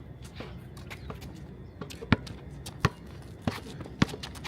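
A basketball being dribbled, bouncing off the court in sharp smacks. Faint bounces come first, then four loud ones in the second half, roughly one every two-thirds of a second.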